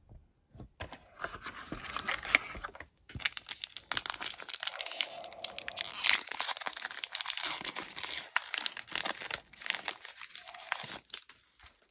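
Foil wrapper of a trading-card pack crinkling and tearing as it is opened by hand, a dense crackle of small clicks with a short pause about three seconds in.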